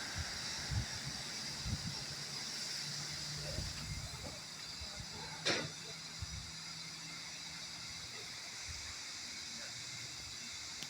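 Steady steam hiss from a standing LMS Fowler 3F 'Jinty' 0-6-0T steam tank locomotive, with a faint low hum and a few light knocks. One short, sharp sound comes about five and a half seconds in.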